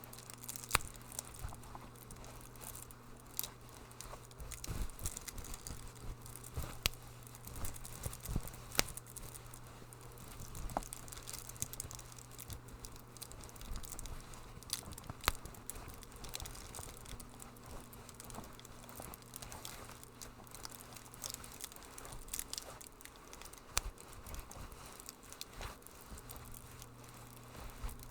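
Wood fire crackling in a fireplace, with irregular sharp pops and snaps over a soft steady hiss and a faint low hum.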